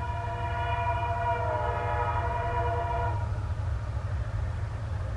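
Diesel locomotive's multi-tone air horn sounding one long blast of about three seconds, then cutting off, over a steady low rumble that continues after it.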